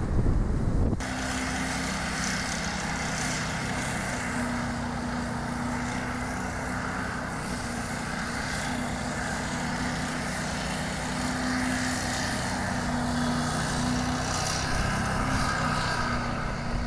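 Wind buffeting the microphone over surf for about a second, then suddenly a small petrol lawnmower engine running steadily.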